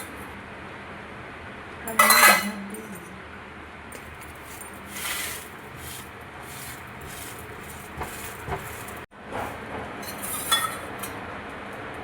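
Kitchen utensils and dishes clinking as a pan is handled for toasting bread in ghee, with a loud clatter about two seconds in and lighter clinks later.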